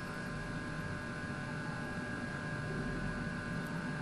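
Steady background hiss with a faint electrical hum: room tone, with no distinct event.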